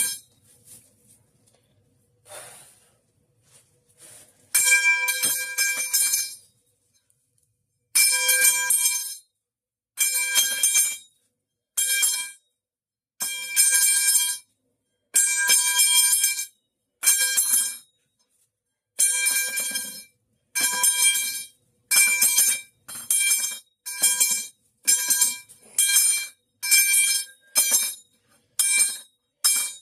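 The metal pipe falling sound effect, played over and over: a loud metal clang ringing with several clear tones, each cut off short. After a few quiet seconds the clangs start, and they come faster toward the end, about one a second.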